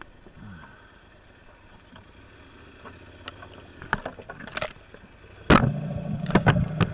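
Branches and brush being pushed and cracked by hand, with scattered snaps and knocks, then a sudden loud bang about five and a half seconds in, followed by a low hum and more knocks and scraping.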